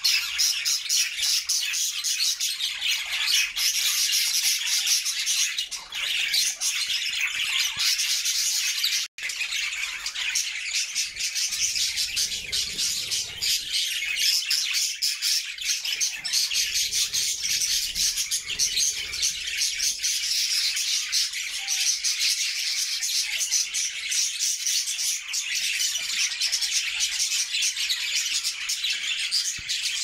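A flock of budgerigars chirping and warbling, a dense, unbroken chatter that cuts out for an instant about nine seconds in.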